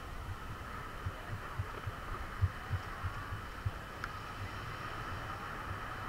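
Plastic toy shovel digging and scooping wet beach sand: a run of dull, irregular low thuds, two or three a second, over a steady background hiss.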